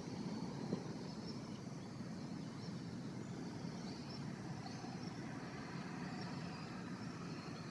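A steady, low, distant engine drone, with faint high chirps over it.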